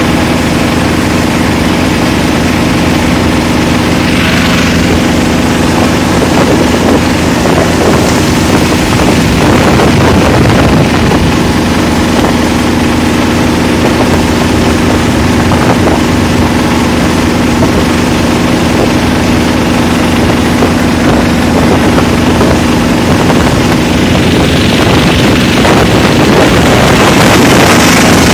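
A 21 hp Dixie mud motor, a Briggs & Stratton Vanguard V-twin, running steadily under load as it drives the boat across the water, getting a little louder about eight seconds in and again near the end.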